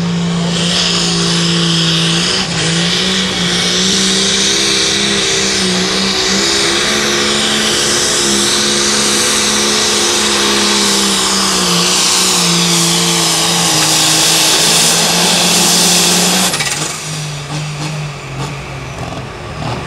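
Turbocharged engine of a John Deere light limited super stock pulling tractor running flat out under load as it drags the sled, with a high turbo whine over the engine note, whose pitch wavers a little. After about sixteen seconds the whine stops and the engine sound drops sharply as the throttle comes off.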